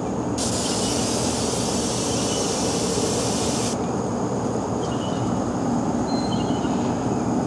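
Aerosol insecticide can spraying through its extension straw in one continuous hiss of about three seconds, starting about half a second in and cutting off sharply, over a steady low background rumble.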